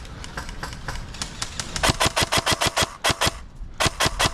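Airsoft gun firing a rapid string of sharp shots at about eight or nine a second, pausing briefly, then firing a shorter string near the end. Fainter, scattered shots sound before it.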